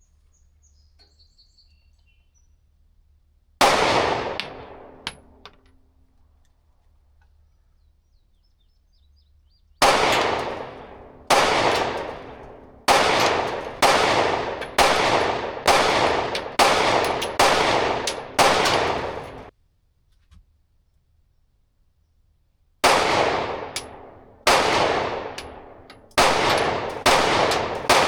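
Glock 43X 9mm pistol fired: a single shot, then a string of about nine shots roughly one a second, and after a pause a quicker run of about six more. Each shot leaves a ringing echo tail.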